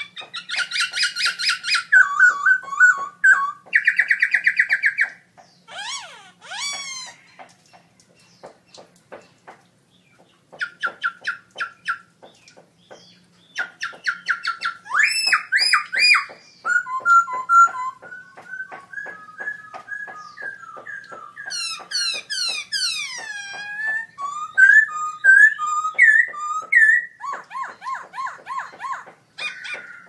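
Black-throated laughingthrush (Garrulax chinensis) singing loudly: a varied song of fast runs of repeated notes, clear whistles and sliding, swooping whistled phrases, broken by a few short pauses.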